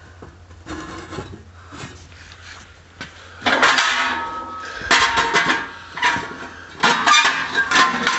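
Metal clanking and rattling in several loud, irregular bursts, starting about three and a half seconds in, with brief ringing tones as metal parts knock together.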